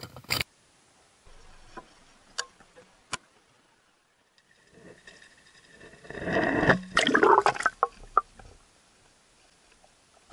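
A baited hook and sinker cast into the lake, making a burst of splashing and gurgling water that is loudest for about two seconds past the middle. A few sharp clicks come before it.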